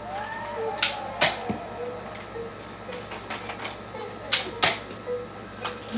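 Five sharp clicks or knocks at uneven intervals: a pair about a second in, another pair past four seconds, and one near the end.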